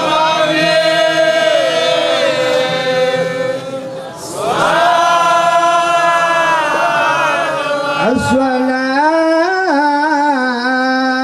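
Men's voices chanting an unaccompanied Islamic devotional chant (mawlid) in long, drawn-out phrases. There are three phrases. The last one starts about eight seconds in with a sweep up in pitch and is held with small turns in the melody.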